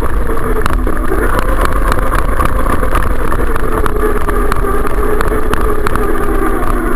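Loud, steady engine-like rumble with a slowly wavering drone and many small clicks, most likely an off-road vehicle's engine running as the camera moves slowly with it.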